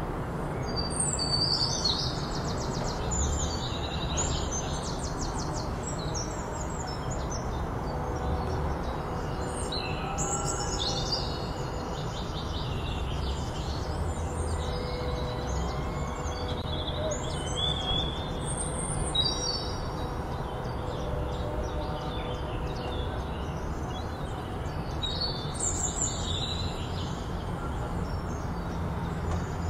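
Small birds chirping and trilling in short bursts throughout, over a steady low background rumble.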